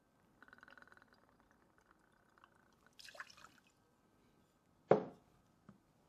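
Light rum poured from a bottle, a quick fluttering glug that trails off after about two seconds, then a short splash as it goes into the mixing glass. A single sharp knock near the end, loudest of all, as something is set down on the bar.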